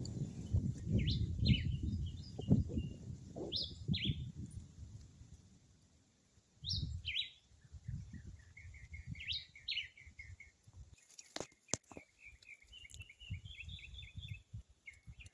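Birds singing, among them a black-whiskered vireo (Jamaican "John-chewit"): short, sharp, falling notes in groups of two or three with pauses between, and rapid runs of quick chattering notes around the middle and near the end. A low rustle and a couple of clicks lie underneath.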